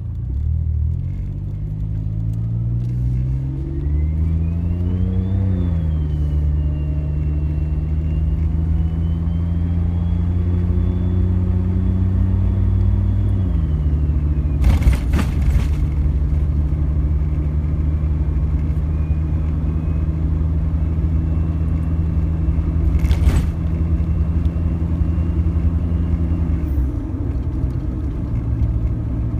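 Suzuki Jimny driving: its engine climbs in pitch while accelerating, with a faint high whine rising alongside, then steps down in pitch suddenly three times and runs steadily between. Two brief sharp knocks, about fifteen and twenty-three seconds in.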